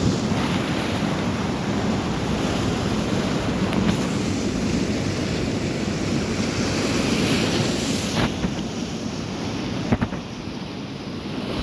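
Sea waves breaking and washing ashore in a steady surf, with wind buffeting the microphone.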